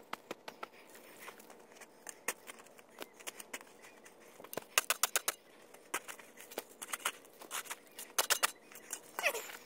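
Fast-forwarded shoveling of soil into a hole: rapid shovel scrapes and dirt clods pattering down, with dense runs of sharp clicks about five and eight seconds in. Near the end, a sped-up voice chatters at chipmunk pitch.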